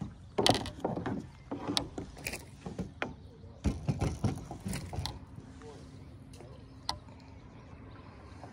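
Irregular knocks, clatters and rustling as a freshly hooked bass is swung aboard a plastic kayak and grabbed by hand, busiest in the first five seconds and then quieter.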